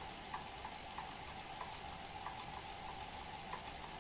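Treadmill DC motor driving a Simat 101 lathe at low speed: a steady faint running noise with a thin steady tone, and a light tick repeating about every two-thirds of a second.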